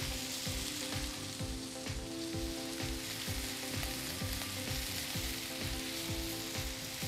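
Ground pork and chicken skewers sizzling on a hot Blackstone flat-top griddle: a steady frying hiss.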